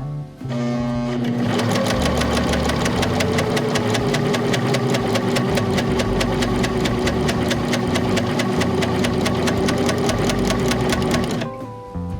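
A Juki MO-1000 overlock machine (serger) sewing at speed. It gives a fast, even rattle of stitches over a steady motor hum, starting about a second in and stopping shortly before the end.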